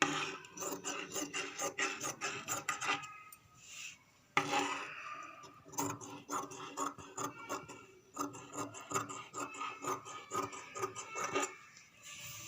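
Scissors cutting through fabric in quick, repeated snips, with a pause of about a second near the four-second mark before the cutting resumes.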